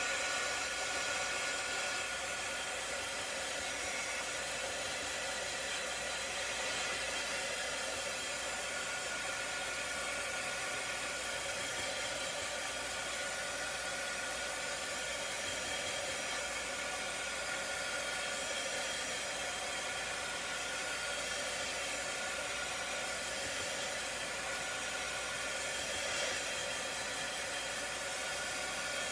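Small handheld craft dryer blowing hot air over a chalkboard stencil to dry the freshly applied chalk paste: a steady airy hiss with a faint motor whine, holding even throughout.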